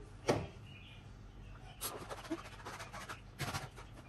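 Cooked rice being spooned into a disposable aluminium foil tray: a few short scrapes and foil crinkles, the loudest about a third of a second in, more around two seconds and three and a half seconds in.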